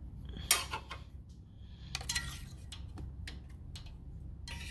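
A few light metallic clicks and clinks, scattered and brief, over a low steady hum.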